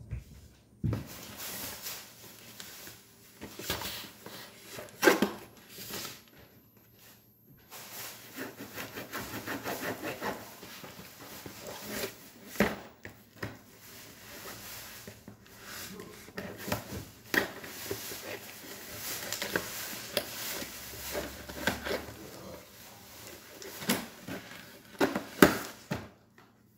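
Kitchen knife cutting and scraping through the packing tape and cardboard of a shipping box, irregular scratches, rubs and taps with sharper knocks here and there; near the end the cardboard flaps rustle as they are pulled open.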